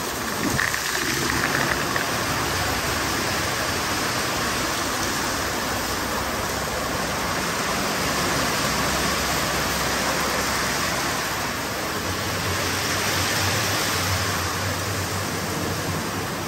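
Tunnel car wash running: MacNeil wrap-around brushes spinning against a vehicle while spray arches spray water, giving a steady rushing noise. A low hum joins about twelve seconds in and fades near the end.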